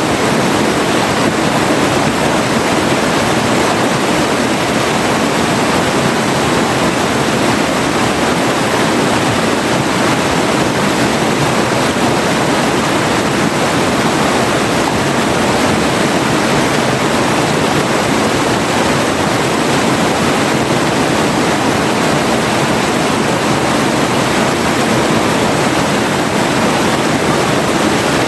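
River water rushing and splashing over rocks in a steady, unbroken rush.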